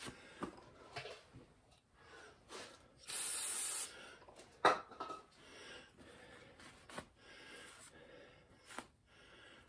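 A short burst of aerosol solvent spray, a steady hiss just under a second long about three seconds in, used to clean the babbitt of a Model A connecting-rod cap. Around it, a rag rubbing on the cap and light knocks and clicks of metal parts being handled.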